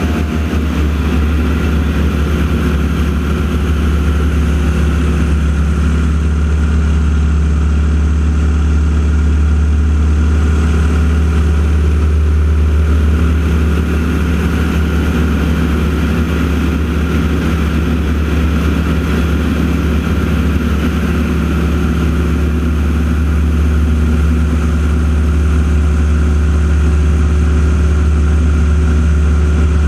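Steady low engine drone, holding one pitch throughout with no rise or fall.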